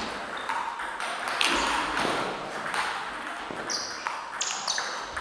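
Table tennis rally: a celluloid ball ticking against bats and bouncing on the table, with sharp clicks at uneven intervals.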